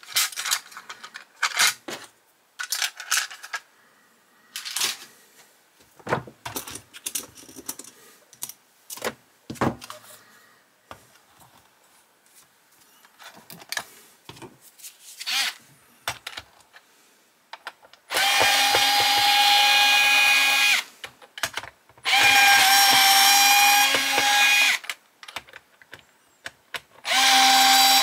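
Small clicks and taps of diecast and plastic model-car parts being handled. Then an electric screwdriver runs three times, about three seconds each, with a steady whine as it drives screws out of the model's body.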